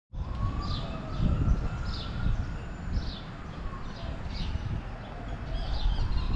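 Small birds calling in short, quick downward chirps, roughly one a second, with a low rumble underneath.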